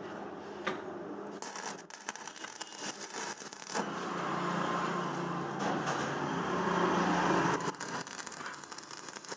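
Stick (manual arc) welding on steel scroll work: the arc crackles and sputters in spells as the electrode tacks the pieces together, loudest and longest through the middle, with a low steady hum under the long run, then dropping back near the end.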